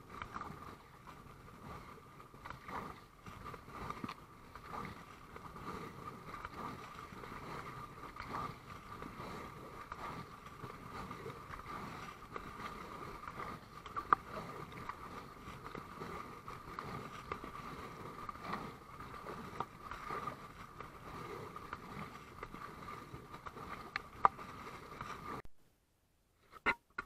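Paddle strokes splashing in the water beside an inflatable kayak, with a few sharp knocks, over a steady faint high hum. The sound drops out completely about a second and a half before the end.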